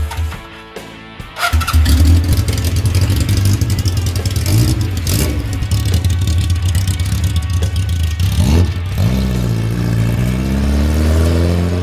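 1979 Kawasaki KZ1000's air-cooled inline-four engine catching about a second and a half in, then running and revving. Near the end it pulls away, its pitch rising steadily as it accelerates.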